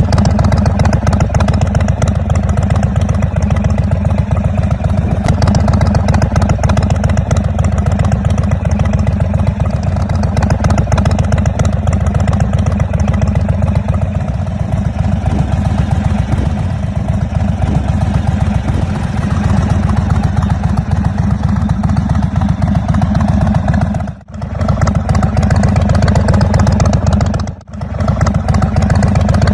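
Indian Scout Bobber's V-twin engine running steadily through its exhaust, a dense low pulsing note. Near the end the sound drops out suddenly twice for a fraction of a second.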